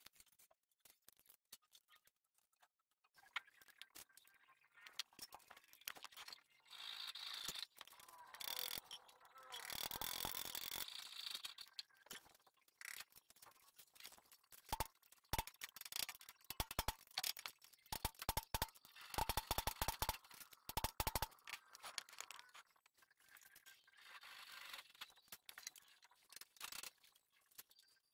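Small metal parts clinking and scraping as an oil pump is fitted and fastened to an open motorcycle crankcase. A scraping rattle comes about a third of the way in, followed by a quick run of sharp clicks in the middle.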